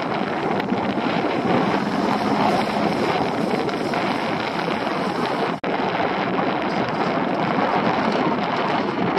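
Wind buffeting the microphone, mixed with the steady running of a small boat's outboard motor. The sound breaks off for an instant a little past halfway.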